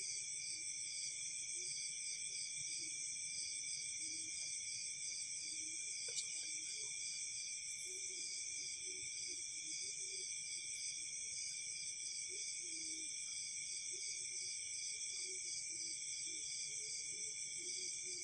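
Night chorus of crickets and other insects: a steady, dense trilling at several high pitches, one of them pulsing in an even rhythm.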